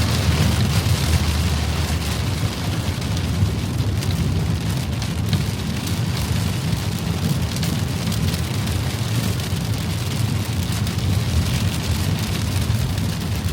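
Rain striking a car's windscreen and roof while driving through a storm, over the car's steady low road rumble.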